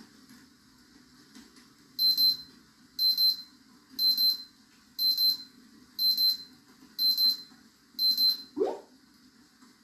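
Digital alarm timer beeping: a quick double beep once a second, seven times, then a short rising sound near the end. It marks the end of the timed study session.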